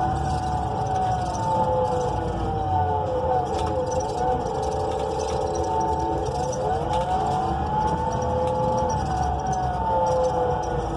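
Inside a NABI 42 BRT bus: the drivetrain of its Cummins Westport L9N natural-gas engine and Allison B400R automatic transmission whines over a low engine rumble. The whine falls in pitch a few seconds in and then climbs again as the bus slows and picks up speed.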